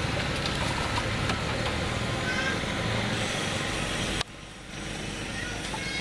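Roadside street noise: a vehicle engine running steadily, with voices in the background. The noise drops suddenly about four seconds in and goes on more quietly.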